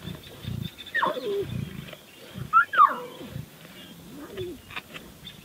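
Lion cubs calling: short, high mews that slide down in pitch. There is one about a second in, a louder pair just before three seconds, and a lower one past four seconds.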